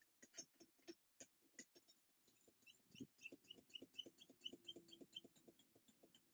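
Faint trickle of mead running from a siphon tube into a glass wine bottle, with scattered light clicks, then small bubbling blips, about four or five a second, from about three seconds in.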